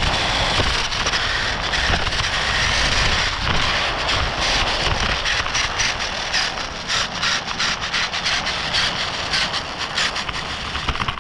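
Onboard sound of a radio-controlled car driving over rough, gravelly pavement: a steady rumble and hiss of wheels and chassis, with rapid clicks and rattles from about four seconds in as it jolts over the rough surface.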